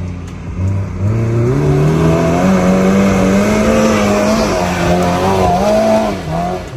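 Maruti Gypsy's engine revving hard under load up a dirt climb. Its pitch rises over the first couple of seconds, holds with small wavers, then drops near the end, with the tyres spinning in loose dirt.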